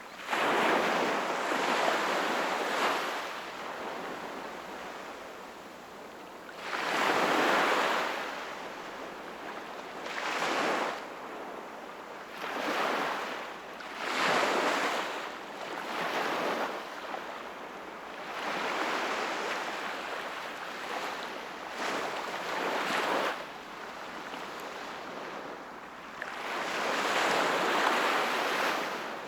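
Sea waves breaking and washing in. The surf surges and falls back every few seconds, with bigger waves near the start, at about seven seconds and near the end.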